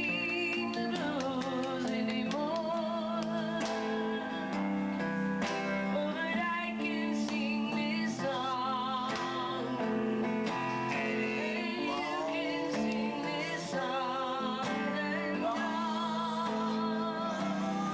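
A woman singing with vibrato over acoustic guitar and held chords.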